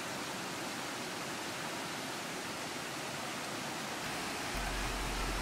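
Shallow mountain stream rushing over rocks, a steady even rush. A low rumble joins near the end.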